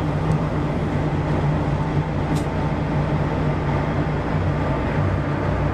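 Steady low mechanical rumble with a constant droning hum, unbroken throughout.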